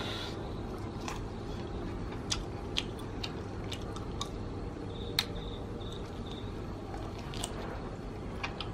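A person chewing and biting into a piece of grilled poultry, with scattered small wet clicks and smacks of mouth and tearing meat.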